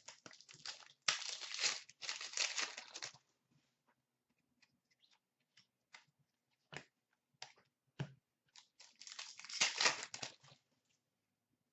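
A 2003-04 Be A Player Memorabilia hockey card pack wrapper being torn open and crinkled in the hands, in two bursts about a second in and near the end. Short clicks and rustles of cards being handled fall in between.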